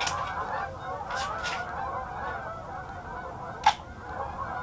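A large flock of geese honking without a break, many calls overlapping. A single sharp click stands out a little before the end.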